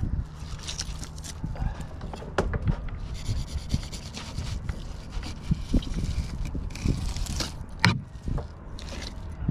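Knife scraping along a striped bass on a cutting board while the fish is held and shifted: a run of short scraping strokes with scattered sharp knocks.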